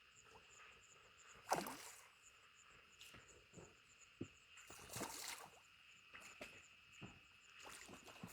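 Near silence: faint steady chirring of night insects, a row of even high chirps over a thin high drone. A brief soft noise comes about a second and a half in and another around five seconds.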